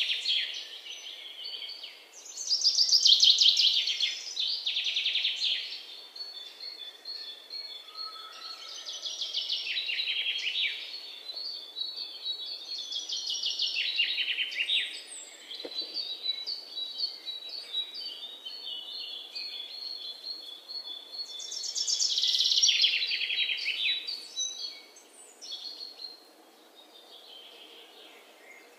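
Birds chirping: repeated bursts of rapid, high trilling calls every few seconds, fading to faint near the end.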